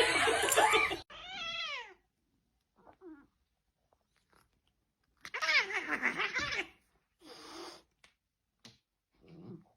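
A cat meowing several times. There is a falling meow about a second in, a longer, louder wavering yowl in the middle, and shorter calls near the end.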